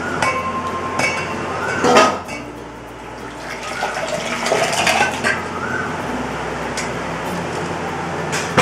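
Cooked moong dal being scraped and poured from a pressure cooker into a steel pot: a wooden spoon knocking and scraping against the metal, the pans clanking together, and the thick dal sliding in. There are louder clanks about two seconds in and right at the end.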